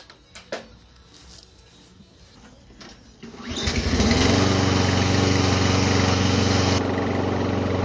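Briggs & Stratton 163cc single-cylinder engine of a Toro Recycler push mower starting about three seconds in, rising quickly to speed and then running steadily. A few light clicks come before it.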